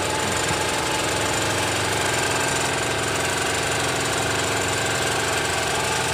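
Engine on a squid-fishing boat running steadily at a constant pitch.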